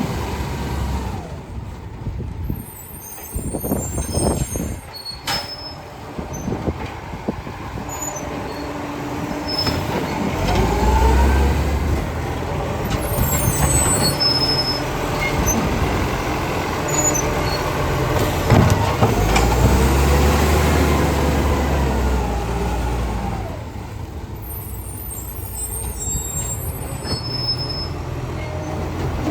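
Garbage truck's diesel engine revving up and down twice, with short hisses from its air brakes.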